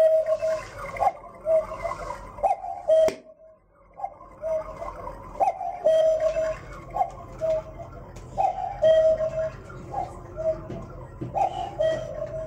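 Cuckoo clock calling the hour: its cuckoo call repeats about once a second, each call starting with a sharp click of the mechanism. The calls break off briefly about three seconds in, then carry on.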